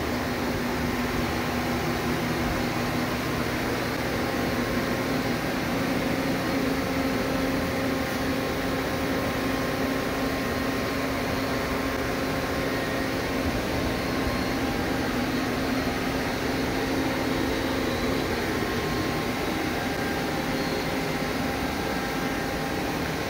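Steady hum of running electric machinery, a few faint constant tones over an even noise, with no change or break.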